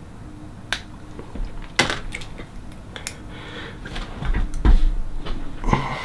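Sharp clicks and snaps of fingers and nails prying at clear plastic teeth aligners, which are held tight on the teeth and won't come out. Heavier low thumps come about four to five seconds in.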